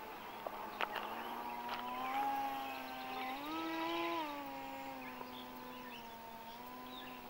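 Motor and propeller of a radio-controlled Icon A5 model seaplane in flight, a steady whine whose pitch rises about three and a half seconds in as the throttle is opened, then eases back down. A sharp click about a second in.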